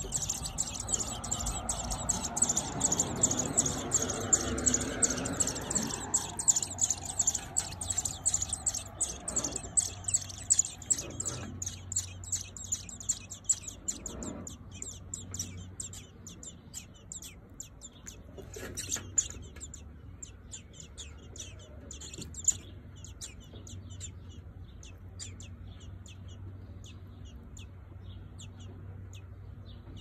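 American robin nestlings begging at the nest: a dense stream of rapid, high-pitched cheeps, loudest over the first dozen seconds, then thinning and fading.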